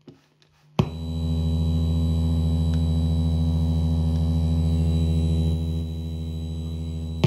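DIY Ciat-lonbarde synthesizer circuit, played by touching its brass-stud touch plate, giving a loud, low, buzzy drone with a fast flutter. It switches on with a click about a second in, dips slightly in level near the end and cuts off with a click.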